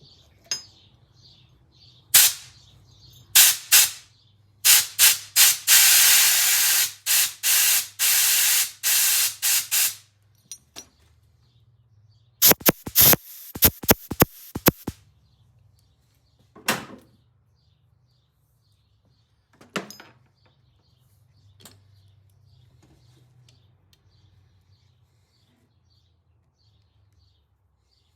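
Aerosol parts cleaner spraying in hissing bursts onto motorcycle throttle parts: a few short squirts, then a run including one spray of about three seconds, then a quick string of short bursts.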